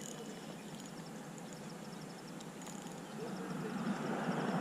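Rumble of a vehicle passing over the bridge overhead, growing louder over the last second or so.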